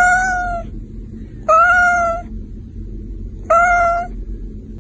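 White cat meowing three times, about two seconds apart, each meow short and even in pitch, over a low steady background hum.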